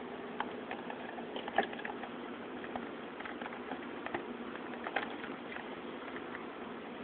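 Scattered small clicks and light knocks as a G-Shock G-Lide 5600 resin watch is handled and lifted out of its cardboard presentation box, loudest about a second and a half in and again about five seconds in, over a steady hiss.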